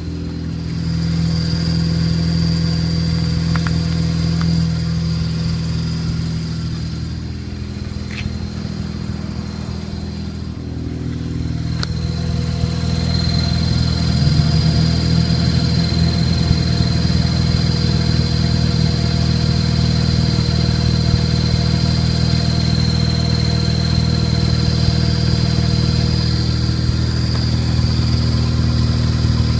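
Mazda RX-8 rotary engine running with a steady high-pitched chirp from the newly fitted clutch, which fades for a moment about a third of the way in and then comes back. The owner suspects a bad clutch fork.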